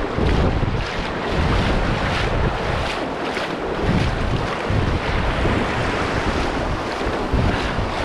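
Wind buffeting the microphone over the rush of shallow surf, rising and falling in uneven surges.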